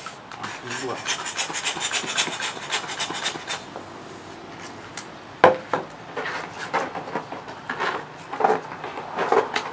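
A latex balloon being filled with a hand air pump in rapid scratchy strokes, then a sharp snap about five seconds in, followed by the rubber squeaking and rubbing as it is handled and twisted with the fingers.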